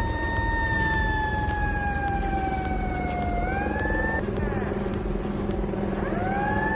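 Heavy machinery running with a low rumble and a high whine that slowly falls in pitch, recovers about three and a half seconds in, breaks off, then glides back up near the end.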